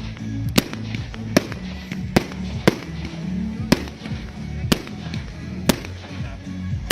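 Sharp bangs from fireworks carried on display model airplanes, about one a second, over music with a steady low bass.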